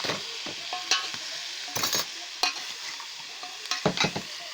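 Vegetables and potatoes sizzling in hot oil in a cooking pot while being stirred, with the stirring utensil scraping and knocking against the pot a handful of times.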